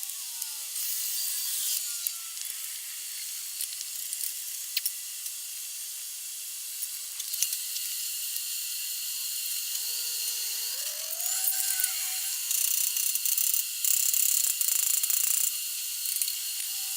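Mechanical clicking of hand tools at work on the bike, against a steady hiss, with a dense run of rapid ratchet-like clicks about three-quarters of the way through.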